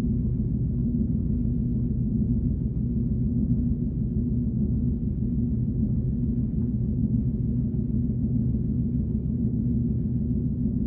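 Synthesized 'alien tone' sound effect: a steady low drone of several sustained deep tones, humming on without change.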